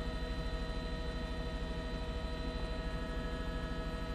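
Helicopter cabin noise heard through the onboard intercom: a steady whine of several fixed tones over a low, fast, even rotor beat.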